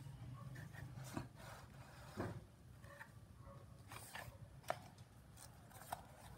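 Faint paper rustling and a few short taps and clicks as documents and an instruction manual are handled and lifted out of a plastic tool case, the sharpest click a little past the middle.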